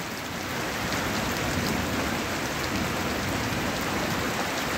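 Heavy rain falling steadily, an even downpour with no letting up.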